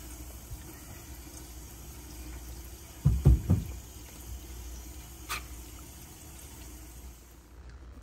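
Tap water running into a sink and down its drain, a steady rushing that stops near the end. About three seconds in come a few heavy low thumps as the rubber condensate drain hose clamped into the drain pipe is handled, and a sharp click follows a couple of seconds later.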